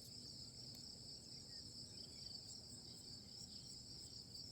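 Near silence, apart from a faint, steady, high-pitched chirring of insects.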